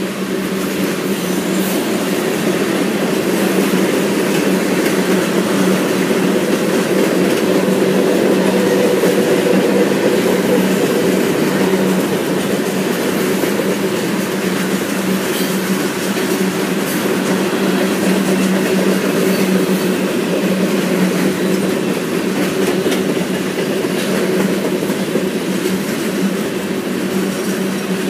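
Manifest freight train's tank cars and covered hoppers rolling past, a steady rumble and rattle of wheels on the rails with some clickety-clack and a steady hum.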